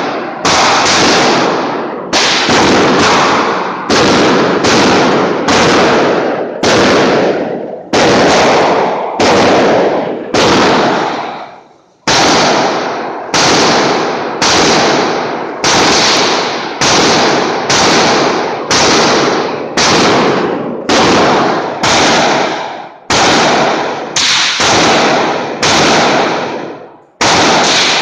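.22 LR rifle fired in quick succession, a little over one shot a second, each crack trailing off in an echo. The shooting breaks off briefly about eleven seconds in and again near the end.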